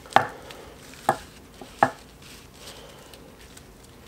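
Allen wrench and small steel screws clicking against the ring roller's cast-iron top plate as it is unscrewed: three sharp metallic clicks in the first two seconds, then quiet handling.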